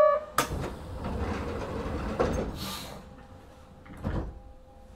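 Sliding doors of a Kobe Municipal Subway 1000 series train closing: a sudden rush of noise about half a second in, a thud a couple of seconds in, and a short low knock about four seconds in.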